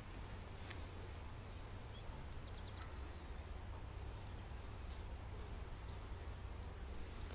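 Honey bees buzzing around a frame lifted out of an open hive, over a steady low rumble, with a few quick high chirps from a bird about two to three seconds in.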